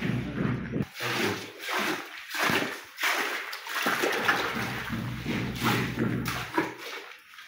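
Wet plaster of Paris slurry splashing and sloshing in irregular bursts as a hand works it, spreading it over a ceiling-board mould and then swirling it in a bucket of water.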